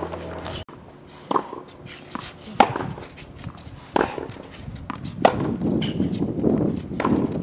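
Tennis balls struck by rackets in a practice rally: a sharp pop a little over once a second, with softer ball bounces between.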